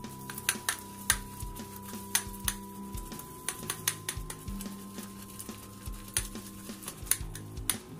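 A boar-bristle shaving brush, a Semogue 830, worked around inside a glass jar of shaving soap to load it, giving irregular sharp clicks and taps against the jar, several a second. Soft background music plays underneath.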